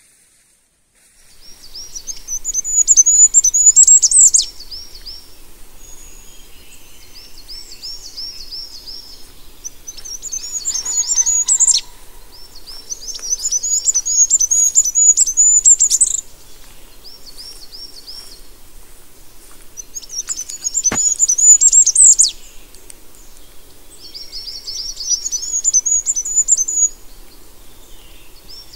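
A songbird singing, repeating its song again and again: each phrase is a quick run of high repeated notes that grows louder and ends in a higher flourish, with a pause of a second or two between songs.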